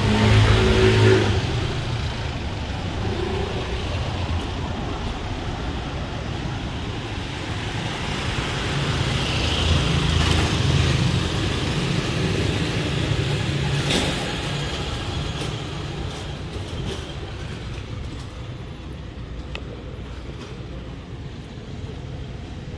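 Street traffic: motor vehicles driving past with their engines running, loudest about a second in and again around ten seconds in, then fading toward the end.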